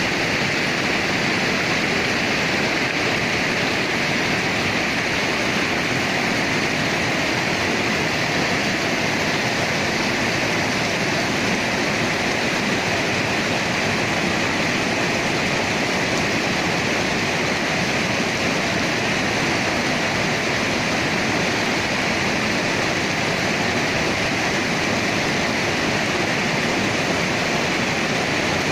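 Mountain river rushing over boulders in small white-water cascades: a steady, close rush of water.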